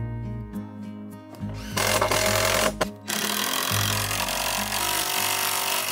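Background music, then a power drill running in two stretches, one about a second long and one about three seconds, as it drives into a wooden roof frame.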